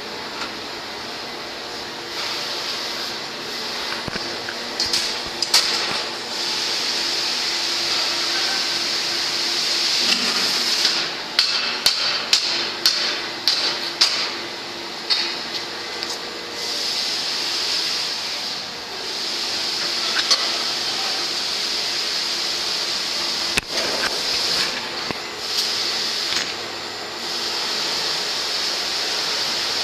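Foundry machinery noise: a steady hiss with scattered metallic clanks and knocks, a quick run of them about eleven to fourteen seconds in and a single hard knock later on.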